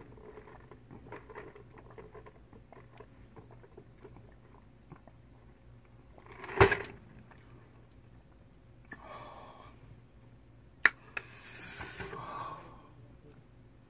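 Sipping through a straw from a foam cup, with small mouth clicks and one loud slurp about halfway through. Near the end a sharp knock as the cup is set down on the desk, and breathy exhales.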